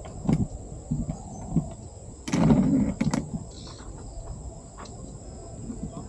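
Steady high insect trill, typical of crickets, with several sharp knocks and a brief rustling burst about two seconds in.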